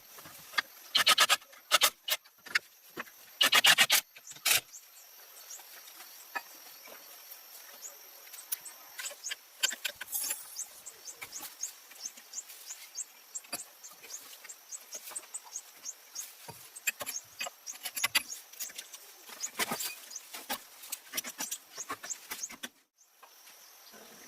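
Tool work on a car: a string of light clicks and clinks throughout, with two short bursts of rapid, even clicking about one second and three and a half seconds in.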